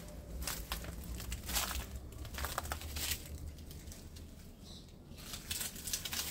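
Dry leaves and twigs crunching and crackling underfoot in irregular steps, over a low rumble of wind on the microphone.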